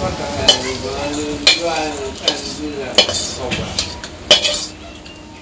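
A metal spatula scraping and knocking against a kadai as fried small fish are scooped out into a steel bowl, over the sizzle of hot oil. Four sharp knocks stand out, the loudest near the end.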